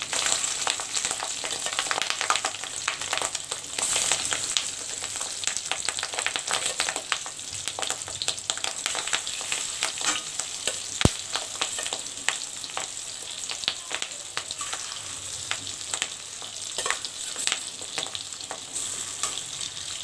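Fish roe frying in hot oil in a kadai: a steady sizzle full of small pops and crackles, with a metal spatula now and then stirring and scraping in the pan.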